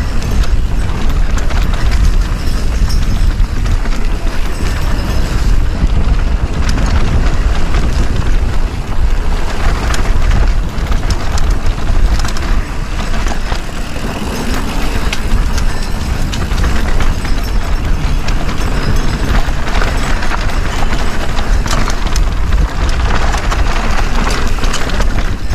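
Mountain bike descending a rocky trail: steady wind rumble on the action camera's microphone, with a constant clatter of tyres and bike knocking over rock.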